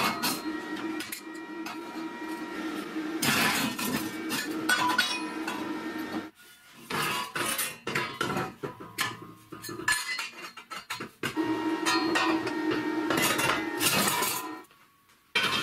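Clanks and clinks of a welded square steel tube frame knocking against a steel welding table as it is handled and turned, in a run of irregular knocks with a couple of short pauses.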